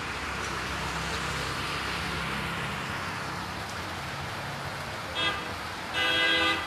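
Steady rain with a motor vehicle passing, its engine humming through the first few seconds. Near the end a vehicle horn sounds twice: a short toot, then a louder, longer one.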